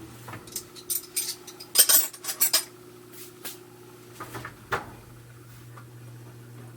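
A quick run of sharp clinks and taps of hard objects, densest and loudest about two seconds in and ending a few seconds later, over the steady low hum of machinery running.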